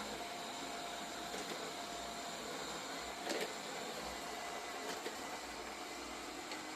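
Laresar Mars 01 robot vacuum running, a steady whirring hum with a faint whine and a light knock about three seconds in.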